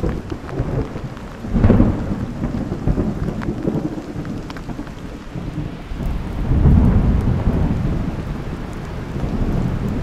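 Thunder rumbling over steady rain: a short peal about two seconds in and a longer, rolling one from about six seconds.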